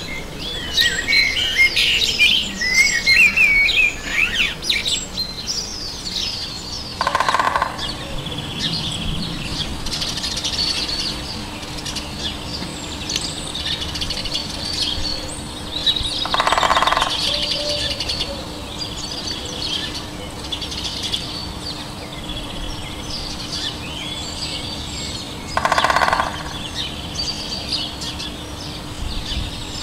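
Woodland songbirds chirping and singing, busiest in the first few seconds. Three separate lower bursts of about a second each come roughly nine seconds apart.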